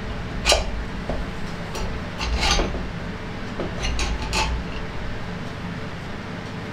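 A few sharp metallic clinks as the finned cylinder barrel of a Fiat 500 499cc engine is worked down over its piston onto the block: one about half a second in, a cluster around two and a half seconds, and two more around four seconds, over a low steady hum.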